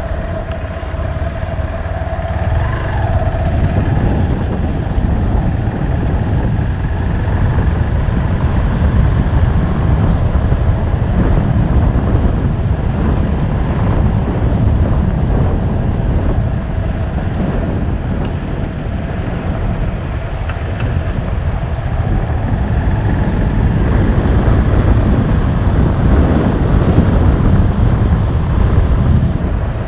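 Hero XPulse motorcycle's single-cylinder engine running steadily under way, with a heavy low rumble of wind on the microphone.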